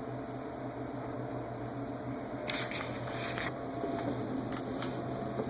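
Steady low electrical hum in a room, with a few brief scuffing or rustling noises about two and a half seconds in and again near four and a half seconds.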